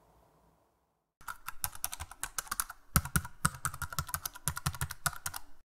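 Typewriter keys clattering in a fast, uneven run of keystrokes. It starts about a second in and cuts off abruptly just before the end.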